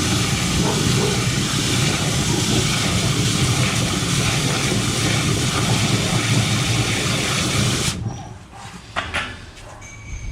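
High-pressure water hose spraying into a blocked drain to flush it loose: a loud, steady hiss that cuts off suddenly about eight seconds in, followed by a few faint knocks.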